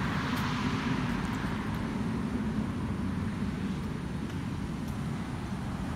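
Steady road traffic noise, swelling in the first second or two as a vehicle goes by.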